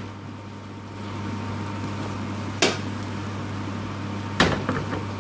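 A metal spoon knocking twice against a frying pan while stirring potatoes, once about two and a half seconds in and again near the end, over a steady hum.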